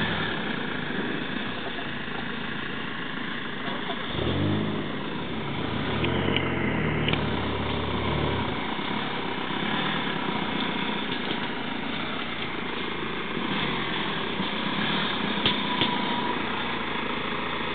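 BMW 1 Series hatchback's engine running as the car is manoeuvred at low speed, with a louder stretch of revving between about four and eight seconds in.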